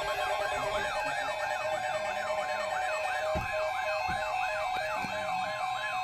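Layered electronic alert tones: a siren sweeping quickly up and down about three to four times a second, over an alternating two-note tone and a steady high tone, sounding as the alert signal ahead of a NOAA Weather Radio tornado watch message.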